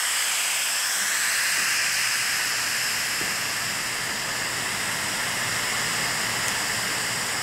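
Instant Pot Pro electric pressure cooker venting steam in a quick pressure release after a high-pressure cook: a loud, steady hiss from the release valve that eases off slightly as the pressure drops.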